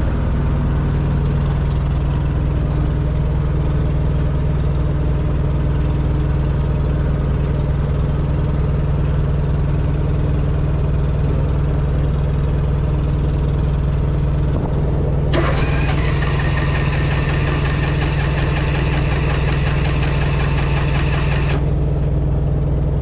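A large engine idles steadily throughout. From about fifteen seconds in, the small gas pony motor is cranked by its starter for about six seconds, then the cranking stops abruptly without the motor catching: it still won't start.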